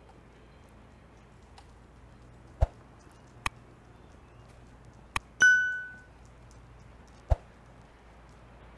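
A few sharp clicks, then a single clear metallic ding about halfway through that rings out and dies away over about half a second.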